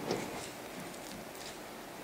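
A few faint, light clicks and taps from handling the dehumidifier's cover panels and screws during reassembly.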